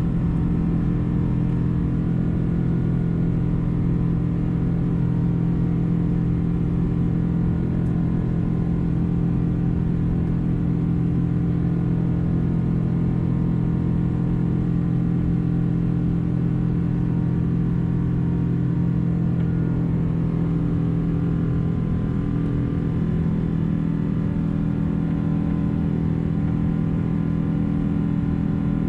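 Boeing 777-200's jet engines heard inside the passenger cabin: a steady, unchanging drone with a low hum of several fixed tones over rumble.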